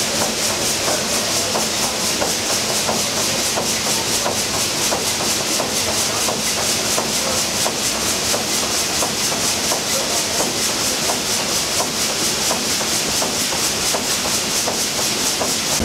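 SS Shieldhall's triple-expansion reciprocating steam engine running at speed: a fast, regular clatter from its moving rods and valve gear over a steady high hiss.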